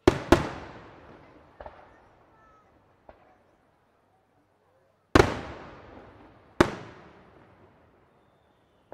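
Aerial firework shells bursting in a display, each bang echoing away slowly. There are two loud bangs close together at the start and two fainter reports around two and three seconds in. Then come two more loud bangs about a second and a half apart, and a short report at the very end.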